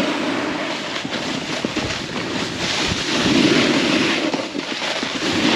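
Steady scraping hiss of sliding down a slope of hard, icy snow, with wind rushing over the microphone; it eases briefly about two seconds in, then picks up again.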